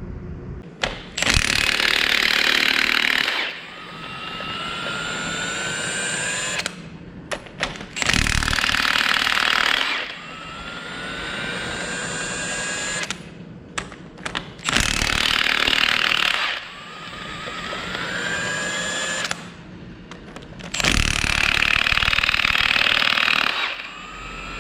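Impact wrench hammering in four bursts of about two seconds each, with a faint rising whine in the gaps between them: bolts being broken loose to tear down an engine.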